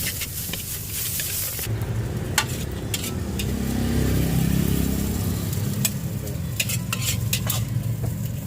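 Nasi goreng being stir-fried in a hot wok: sizzling, with irregular sharp metal clacks of the spatula striking the wok, bunched together near the end, over a low steady rumble.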